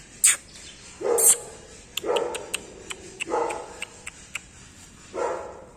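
Golden retriever puppy barking: four short barks spaced about a second apart, with sharp little clicks between them.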